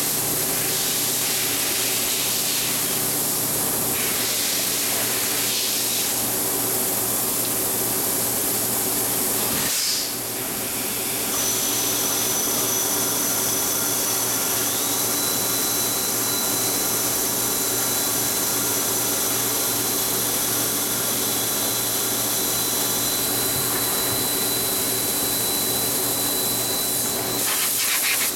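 Metal lathe running, a steady mechanical hum and hiss while the tool cuts the spinning workpiece. A thin high whine joins in after about ten seconds. Near the end comes a short rush of compressed air from a blow gun at the chuck.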